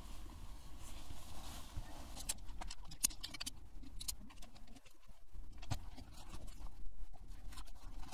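A folding camp chair being put together by hand: a string of sharp clicks and knocks as its poles are fitted and its frame is handled, starting about two seconds in, over a steady low rumble.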